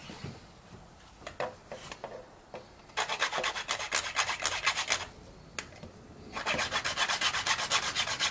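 Cedar S-hook being hand-sanded on sandpaper: a few light clicks as the piece is handled, then two bursts of rapid back-and-forth sanding strokes, each about two seconds long, with a short pause between.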